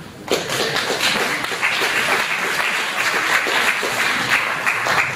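Audience applauding: many hands clapping, starting just after the beginning and dying away at the end.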